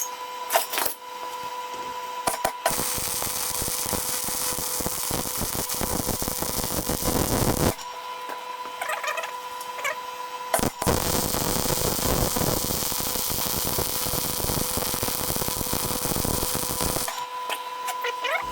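Arc welding the root pass on new pin ears of a digger bucket: a steady crackling hiss in two long runs with a pause of about three seconds between them, over a steady electrical hum.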